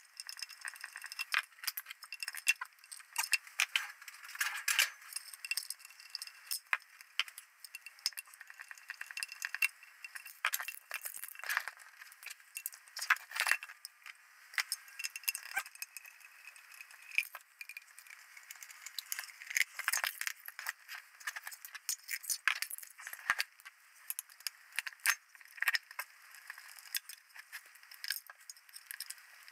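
Screwdriver clicking and scraping on screws inside the metal housing of a Vinten Vicon 78-400 flare dispenser unit as screws are undone, with many irregular small metallic clinks and rattles.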